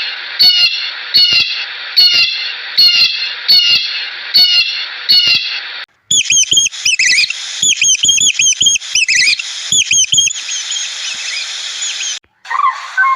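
Bird calls in two bursts. First a short, pitched call repeats roughly every half-second or so; then, after an abrupt change about six seconds in, rapid higher-pitched calls run for about four seconds. A lower call starts near the end.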